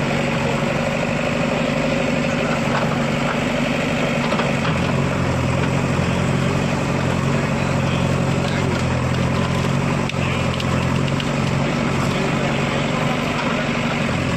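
An engine running steadily at idle, a constant low hum over a dense background noise.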